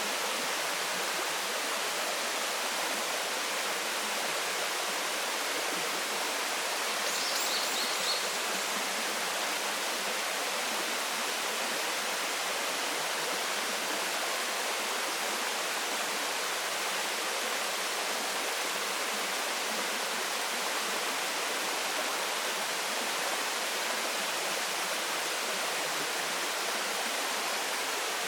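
Waterfall: a steady, even rush of falling water. A brief high chirp cuts through about seven seconds in.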